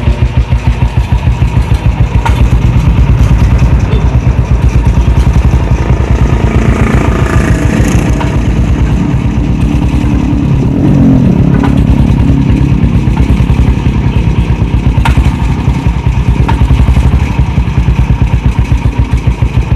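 Motorcycle with an old diesel engine converted to run on petrol, running with an even, rapid pulsing beat that swells in level a few times. The builder says this engine still often detonates, perhaps because the ignition timing or the fuel is not yet right.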